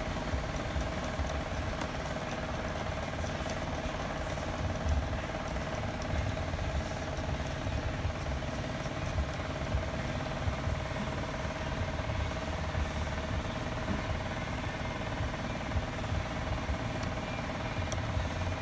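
Steady mechanical hum with a low rumble, with a few faint clicks as a hand screwdriver drives screws into the plastic solenoid valve bracket.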